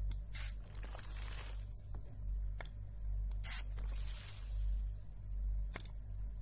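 Two short squirts from a spray bottle, about three seconds apart, onto the clear plastic bag wrapped over the microphone. Each squirt is followed by a softer fading hiss and a few ticks against the plastic, making a rain-like sound.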